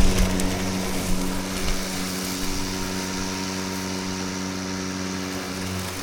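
Milwaukee battery-powered lawn mower running, its electric motor and spinning blade giving a steady hum.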